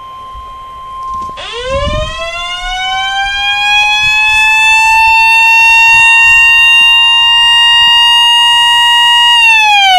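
The steady single-pitch 1050 Hz alert tone of a NOAA Weather Radio required weekly test, sounding until near the end. Over it, a siren winds up from low to a steady high wail about a second in and winds down near the end.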